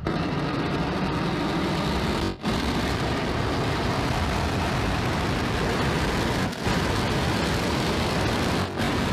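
SpaceX Starship SN8's Raptor rocket engines firing for the landing burn. It is a loud, steady noise that starts abruptly as the engines relight, with brief dropouts about two and a half and six and a half seconds in.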